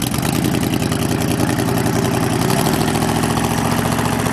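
Corvette's built LT1 small-block V8 idling through large side pipes with an even, pulsing exhaust note; about two and a half seconds in, the note steps up slightly.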